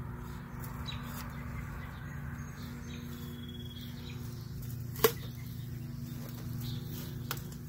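Long-handled bulb planter worked down into hard, dry soil, with a sharp click about five seconds in and a lighter one near the end, over a steady low hum.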